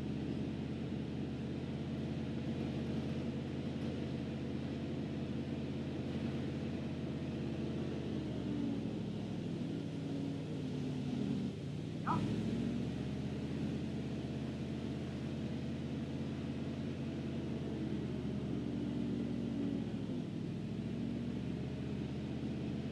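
Engine of a 1976 Chevy C65 log truck running steadily while its knuckle-boom loader is worked. Its note dips and recovers about a third of the way in and again near the end. A short squeak comes about halfway through.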